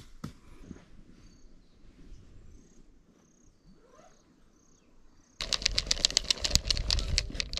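Faint, high chirps repeat evenly, about one every two-thirds of a second, over quiet riverbank ambience. About five seconds in this is cut off by loud, rapid crackling and rustling as a hand grips a plastic tub of worms in soil.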